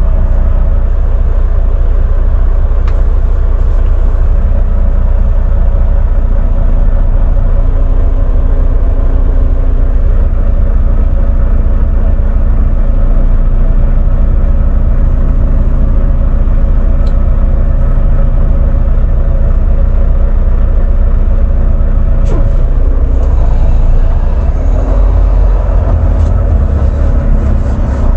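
Diesel engine of a Volvo semi-truck idling, heard from inside the cab as a steady low rumble. In the last few seconds the rumble grows stronger as the truck pulls forward.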